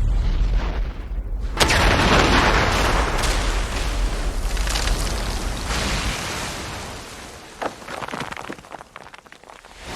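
Sound-effect explosions: a sharp blast about a second and a half in, then heavy rumbling debris noise with a few further cracks, dying away over the last few seconds.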